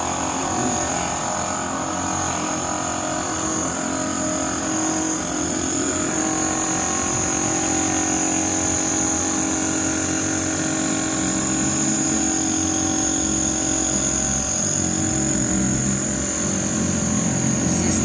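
Steady engine drone with a high whine over it, growing louder near the end.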